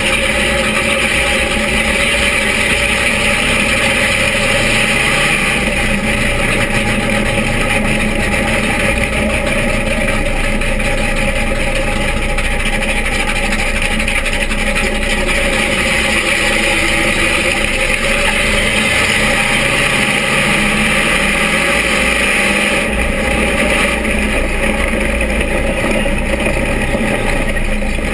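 Vintage dirt-track stock car's engine running loud, heard from inside the open cockpit, its pitch climbing twice as the car accelerates.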